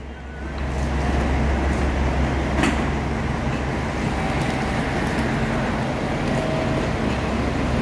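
Diesel engine of JR Kyushu's Aru Ressha, a converted KiHa 47 diesel railcar, idling as the train stands at the platform: a steady low hum that grows louder about a second in, with a single sharp click a little before three seconds.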